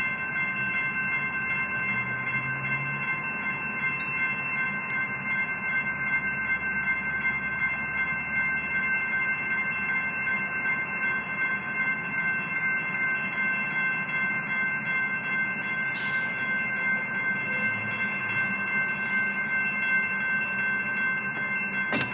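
Railroad grade-crossing warning bell ringing steadily, heard from inside a car, warning of an approaching train.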